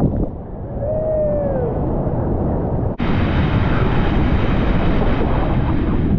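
Whitewater rapid rushing on a kayaker's camera. For the first second or so it is muffled while the camera is washed over by water, with a short falling tone. About three seconds in it cuts suddenly to a brighter, steadier rush of whitewater.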